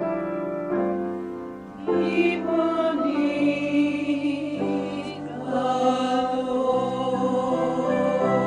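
Church music: slow held piano notes, with a choir coming in about two seconds in and singing sustained notes over them.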